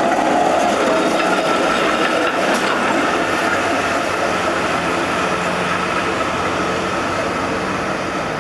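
A two-car street tram passing close by on street track: a steady rumble and rattle of wheels on rail, fading slowly as it draws away.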